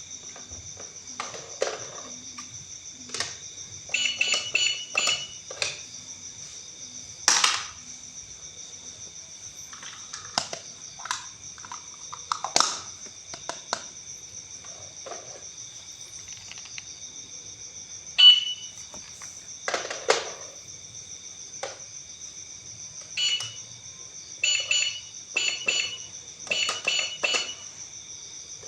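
Toy cash register being handled: its buttons are pressed in quick runs of short electronic beeps, twice, among scattered plastic clicks and knocks.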